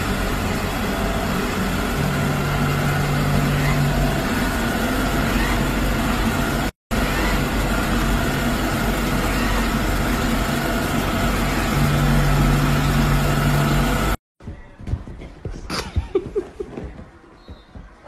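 Samsung robot vacuum running steadily, with a constant motor noise. It drops out for a moment about seven seconds in and stops about fourteen seconds in, leaving only a few faint knocks.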